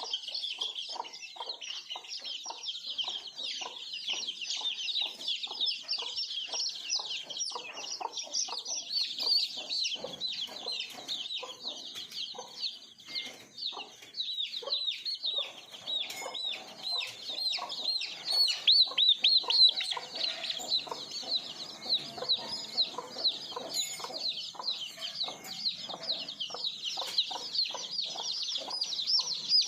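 A flock of desi chicks peeping continuously in dense, overlapping high chirps, with hens clucking in short repeated notes underneath.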